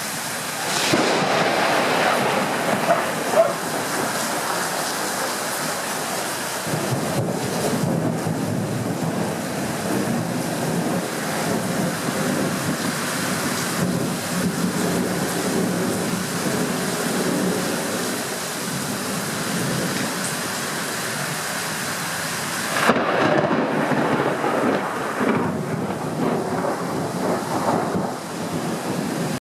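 Thunderstorm: heavy rain and wind noise, rising and falling in surges. The sound drops out for an instant near the end.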